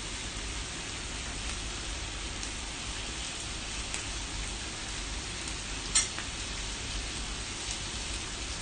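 Pork belly and hot dogs sizzling steadily on an electric grill plate. A single sharp click sounds about six seconds in.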